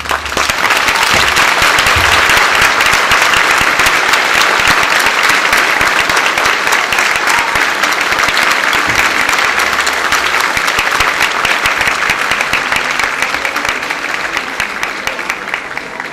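A theatre audience applauding, dense clapping that breaks out suddenly and tapers off near the end.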